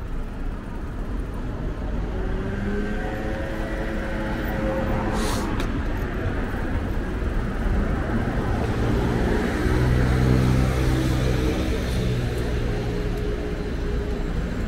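Urban street ambience: road traffic running steadily, growing louder about ten seconds in, with indistinct voices.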